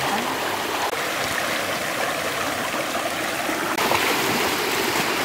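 Shallow stream running over stones: a steady rush of water that gets a little louder near the end.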